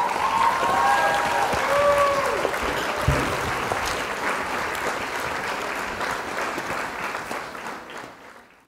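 Crowd applause with a few cheering calls over the first couple of seconds, fading away near the end.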